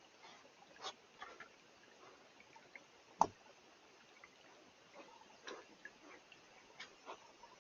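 Faint, scattered clicks and soft ticks from a mountain lion moving and sniffing close to a trail camera, with one sharper knock about three seconds in.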